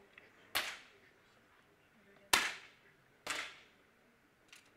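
Three sharp pops of 10 m air pistols firing on the range, each trailing off in a short echo. The second, a little over two seconds in, is the loudest, and a faint click comes near the end.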